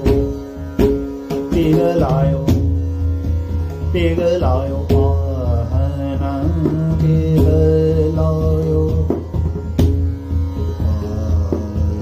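Male dhrupad vocal in Raag Bhoopali (Bhup), the voice sliding and wavering through ornamented sustained notes, over a steady tanpura drone, with occasional sharp pakhawaj strokes.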